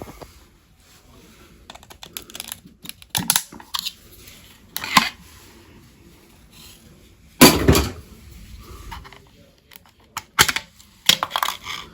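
Irregular clicks, taps and knocks of hands handling equipment, the loudest knock a little past halfway.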